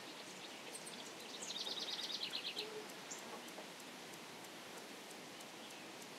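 Outdoor nature ambience: a steady soft hiss of background noise, with a bird's rapid trill about a second and a half in, lasting about a second, and a few short high chirps.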